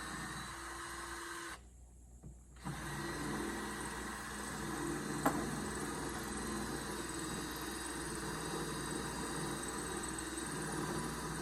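Power drill boring a mounting hole, running steadily; it stops for about a second shortly after the start and then starts again. One sharp click about five seconds in.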